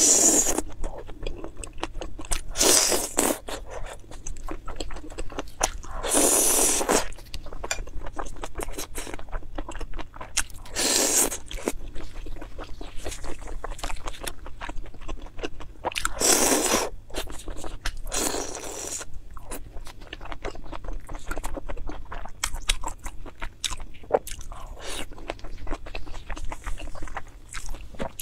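Close-miked eating of spicy fried skewers, mainly sauce-coated sausages: steady wet chewing clicks, broken by about half a dozen louder crunchy bites.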